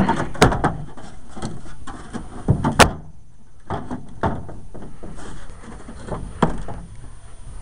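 A loose steel tailgate set onto a pickup bed, with a series of irregular metal clunks and knocks; the loudest comes about three seconds in.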